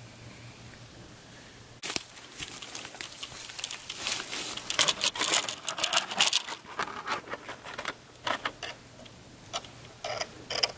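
Rustling and crackling of dry grass stems being moved through and brushed. It starts about two seconds in, stays dense for several seconds and grows sparser near the end.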